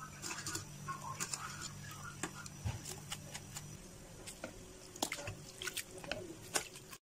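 Blanched egg noodles draining in a wire mesh strainer: water dripping and pattering, with scattered sharp clicks, over a low hum that stops about four seconds in. The sound cuts off suddenly near the end.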